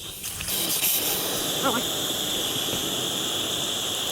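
Steady hiss of liquid being sprayed onto the condenser coil. It comes in about half a second in and stops abruptly at the end.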